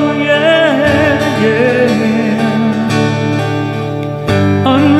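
Male vocal with guitar accompaniment: a drawn-out, wavering sung note ends a line, then the guitar chords carry on alone, changing to a new chord a little after four seconds in.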